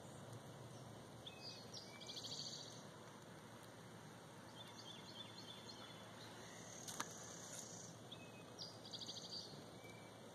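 Faint distant birdsong over a quiet outdoor background: two short, rapid trills about seven seconds apart, with fainter chirps and a single click between them.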